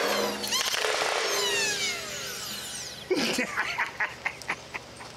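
Two selectfire Nerf flywheel pistols (PewTech PewPews) dumping 10-round magazines on full auto: a fast, dense clatter of darts firing, with the motors whining down in falling pitch as the bursts end, about two seconds in.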